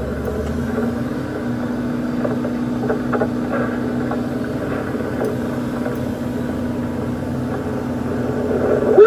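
Diesel engine and hydraulics of a KATO MR-350R rough-terrain crane running steadily under crane operation, with a steady hum that firms up a little under a second in. A brief loud sound comes right at the end.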